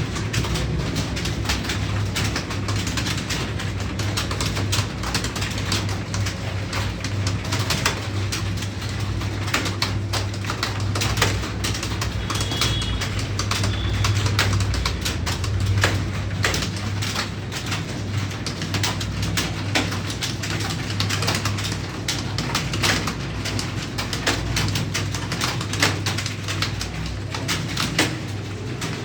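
Computer keyboard typing: quick, irregular key clicks, several a second without a break, over a steady low hum.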